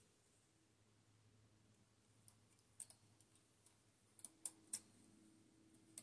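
Faint, scattered light metallic clicks of a hand transfer tool against the steel latch needles of a Brother standard-gauge knitting machine as edge stitches are hung on the needles: a couple of single clicks about two seconds in and a quick run of three or four near the end, otherwise near silence.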